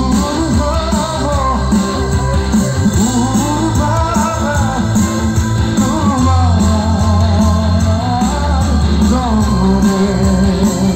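Live Assamese band music played loud over a PA: a man singing a wavering melody over guitars, bass and hand drums.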